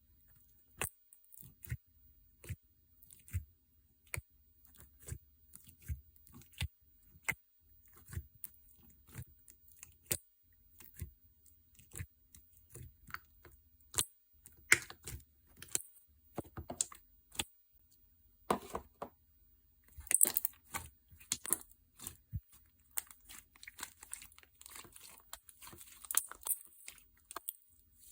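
Homemade slime being pressed and poked by hand, giving sharp wet clicks and pops about once or twice a second. The sounds turn into a denser crackling in the last third.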